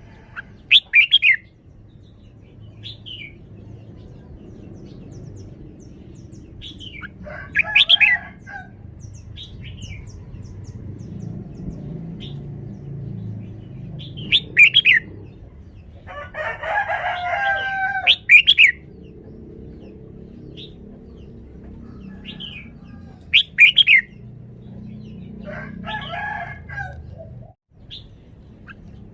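Red-whiskered bulbul singing: short, loud whistled phrases every few seconds, with one longer, fuller phrase a little past the middle, over a steady low rumble.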